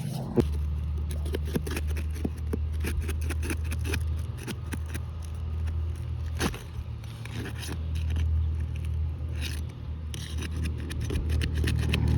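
Repeated gritty scraping and crackling of asphalt roof shingles being worked on, over a steady low hum.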